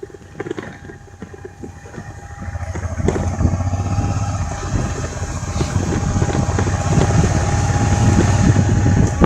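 A vehicle on the move, its running and jolting rumble growing much louder about two and a half seconds in and staying loud.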